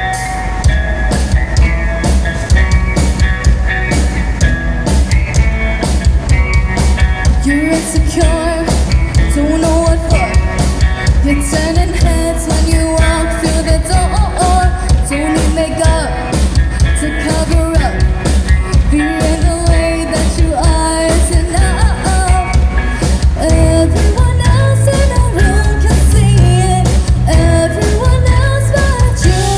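A singer performing a rock-pop song over a backing with a steady drum beat and bass; the voice comes in about eight seconds in, after an instrumental opening.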